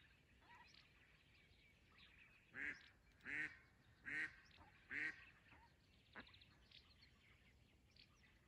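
Live decoy hen duck quacking four times in a row, a little under a second apart, a couple of seconds in: the decoy calling to draw in wild drakes.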